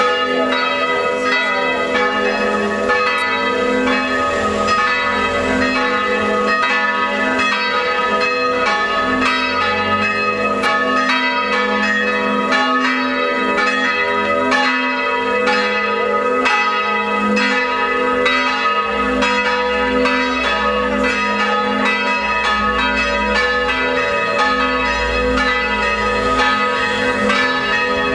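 Three swinging bronze church bells tuned to A-flat, B and E-flat, rung together by an electromechanical system in a continuous festive peal (distesa). Their strokes overlap at an even pace over a bed of ringing tones, calling the faithful to mass.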